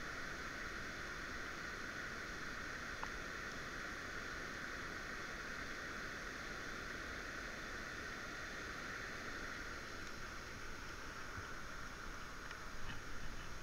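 Steady rushing hiss of river water flowing, with a few faint ticks near the end.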